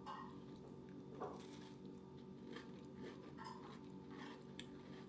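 Faint, intermittent crunching as a person chews a bite of graham cracker spread with butter.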